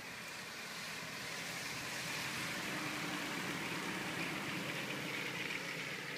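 A small van driving past on a wet street, its tyres hissing on the wet asphalt. The sound swells, then fades near the end as the van moves away.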